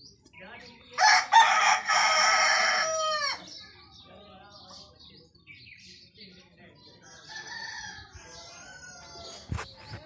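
A desi rooster crows once, loud, for about two seconds starting a second in, the crow ending in a falling tail. Fainter calls follow later, with small bird chirps throughout and a single sharp knock near the end.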